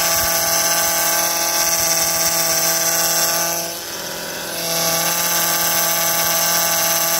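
Failing power steering pump on a 2005 Honda Odyssey, spinning with the engine running and giving off a big, steady moaning whine made of many tones. The owner takes it for a worn-out pump, since the fluid level is fine and there is no leak. The whine drops in level for about a second midway.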